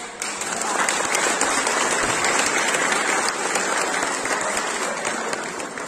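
Audience applauding, swelling up within the first second and then holding steady.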